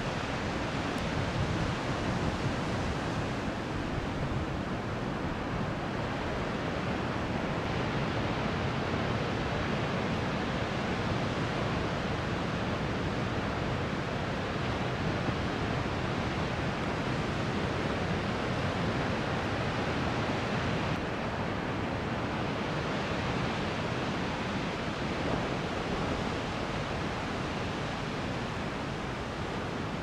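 Large 7–9 ft ocean surf breaking, a continuous even wash of wave noise with no distinct single crashes.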